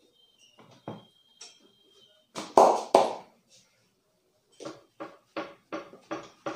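A barber's open hand slapping a customer's back through his T-shirt during a back massage: two loud slaps, then a quicker, even run of lighter slaps at about two and a half a second.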